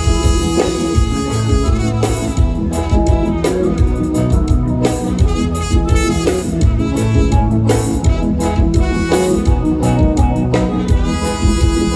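Live band playing instrumental music with a steady beat.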